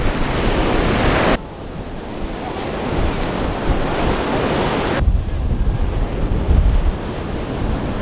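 Ocean surf breaking and washing up a sandy beach, with strong wind buffeting the microphone. The sound changes abruptly twice, and a heavy low wind rumble fills the last few seconds.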